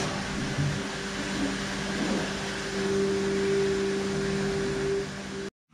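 Wet-blasting (hydro blasting) cabinet running: a steady hiss of the blast gun with a steady hum underneath, as old plating and rust are blasted off motorcycle spoke nipples. It cuts off suddenly near the end.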